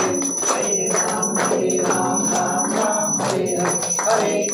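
Marathi devotional aarti sung by a group, with held sung notes, a bell ringing throughout and a steady beat of claps.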